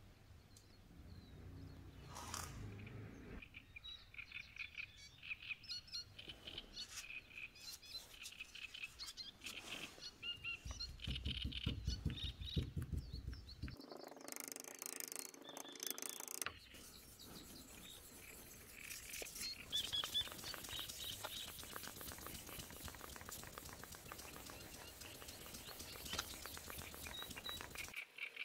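Small birds chirping in an ambient nature recording, over the scratchy rubbing of a paper-wrapped abrasive stick hand-polishing a damascus cleaver blade, with rapid strokes in the second half.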